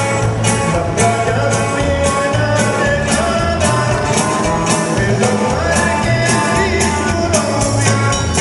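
Loud dance music with a steady beat of about two drum hits a second, a pulsing bass line and a voice singing the melody.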